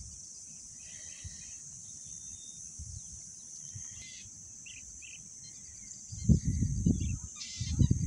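Insects' steady high-pitched drone, with a few faint bird chirps over it. About six seconds in, louder low rushing bursts set in.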